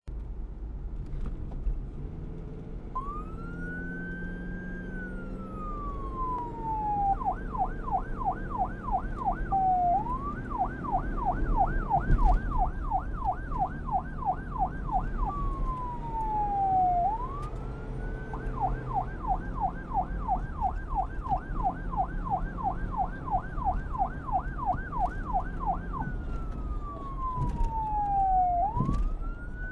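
Electronic police siren, starting about three seconds in. It switches between a slow wail that rises, then falls over a couple of seconds, and a fast yelp of about three to four sweeps a second. A low steady rumble runs underneath.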